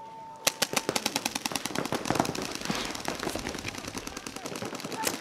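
Paintball markers firing rapid strings of shots, about ten a second, with several guns overlapping. A brief steady tone sounds just before the shooting starts, about half a second in.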